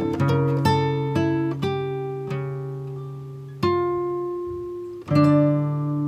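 Soft instrumental background music of plucked notes, each ringing and fading, with fuller chords struck about three and a half and five seconds in and left to ring.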